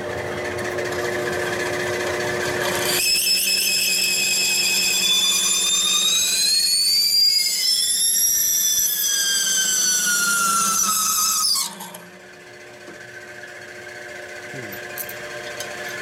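Drill press turning an adjustable reamer through a bolt hole in a Harley 45 flathead cylinder head, the press at its lowest speed, which is still faster than wanted for reaming. The motor hums steadily; about three seconds in, the cutting sets up a loud, high squeal whose pitches slide up and down, and it stops abruptly near twelve seconds, leaving the quieter motor hum.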